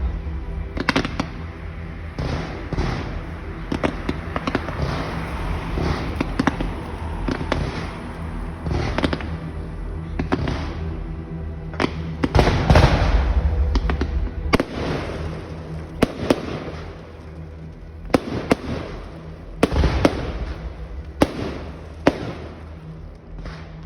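Fireworks going off in a long series of sharp bangs, some close together, with a heavier barrage about twelve seconds in.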